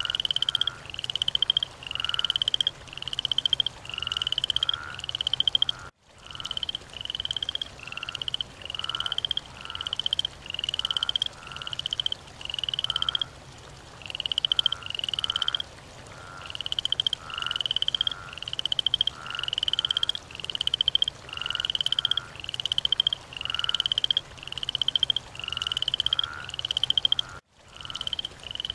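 Frogs calling: a chorus of short, pulsed croaking calls repeated about one and a half times a second, with a weaker, lower call in between. The calling breaks off briefly twice, about six seconds in and near the end.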